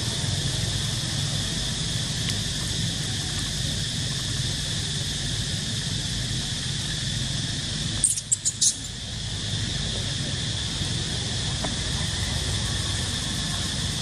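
Steady drone of insects with a low background rumble. About eight seconds in, the drone briefly drops away and a few short, sharp high clicks sound.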